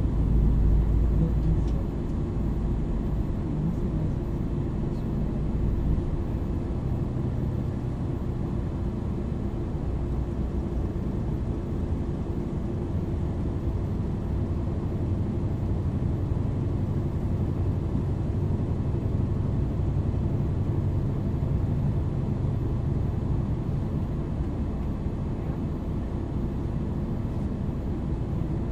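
MAN NL 323 city bus with a ZF EcoLife automatic gearbox, under way and heard from inside: its diesel engine and drivetrain run with a steady low rumble, louder for the first two seconds before settling.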